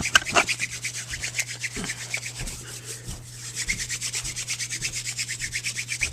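Hand-drill spindle of a weed stalk being spun back and forth by hand on a cedar hearth board for friction fire, giving a fast, even rasping of wood on wood at about five strokes a second that slackens briefly midway.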